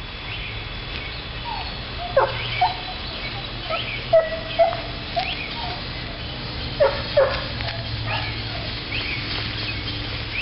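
Basset hound puppies giving short, high yips and whimpers, a handful of them, clustered a couple of seconds in and again past the middle.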